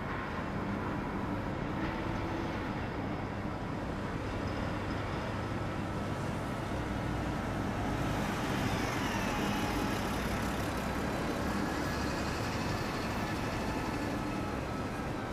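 Steady low mechanical rumble with a hum, like a running engine, growing a little louder with more hiss about eight seconds in, where a faint falling whine is heard.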